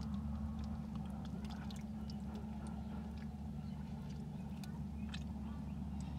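Eels wriggling through wet mud: scattered small wet clicks and squelches over a steady low hum.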